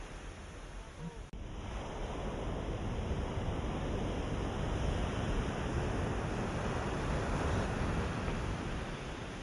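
Ocean waves washing in, a steady rush that swells to a peak mid-way and then eases off.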